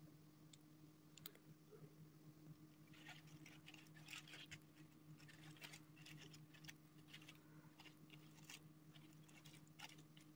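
Near silence: faint crinkling and light clicks from gloved hands setting chocolate roses into a box lined with tissue paper, over a steady low hum.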